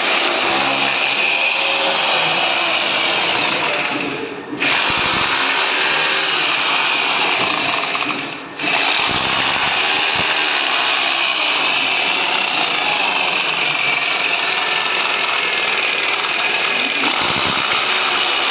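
Corded electric drill drilling into the edge of a PVC wall panel. It runs steadily in three long stretches, with short stops about four and a half and eight and a half seconds in.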